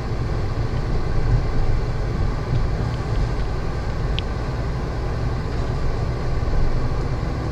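Steady car engine and tyre rumble heard from inside a car driving slowly, with a brief high chirp about four seconds in.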